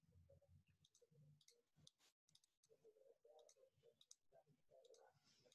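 Faint computer mouse clicks, about a dozen at an irregular pace, over near-silent room tone, as several shapes are shift-clicked to select them. About two seconds in, the sound drops out completely for a moment.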